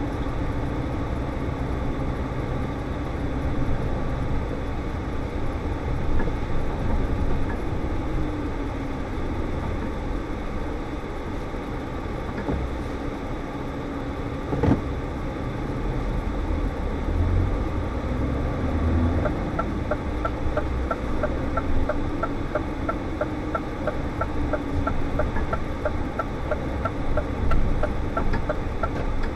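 Scania S520's V8 diesel engine running in the cab at low road speed, its hum rising and falling, with one sharp knock about halfway through. From about two-thirds in, the turn indicator ticks steadily, about twice a second, as the truck turns in.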